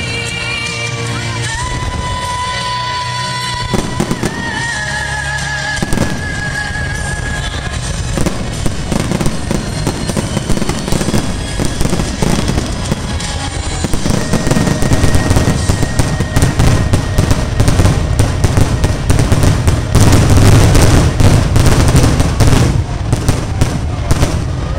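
Fireworks finale: a barrage of shell bursts that grows denser and louder, peaking near the end, with music playing underneath.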